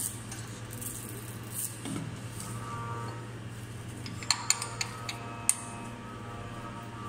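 Hex key working the steel screw of a clamp block on a slitting machine: a few small metallic clicks and clinks about four to five seconds in, over a steady low hum.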